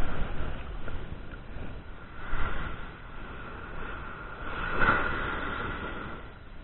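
Small ocean surf breaking and washing up a sand beach, with wind on the microphone; the noise swells about two seconds in and again about five seconds in as waves come in.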